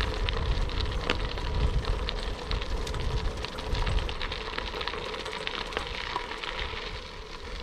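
Bicycle tyres rolling over a loose gravel road, a continuous crackle and rattle of stones, with wind buffeting the camera's microphone.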